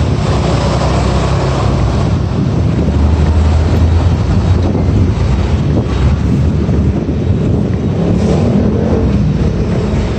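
Loud, steady low rumble with hiss: wind buffeting the microphone mixed with street traffic noise.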